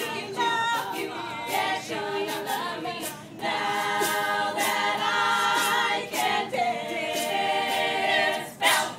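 Women's a cappella group singing in close harmony, sustained chords over a steady beat of short sharp sounds, with a loud burst near the end.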